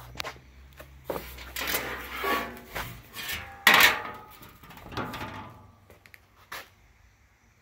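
A run of irregular scrapes and knocks, the loudest a sharp clatter about halfway through, over a low steady hum.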